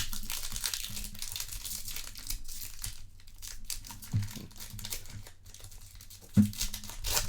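Foil trading-card pack wrappers crinkling and tearing as packs are opened, with two soft thumps about four and six seconds in.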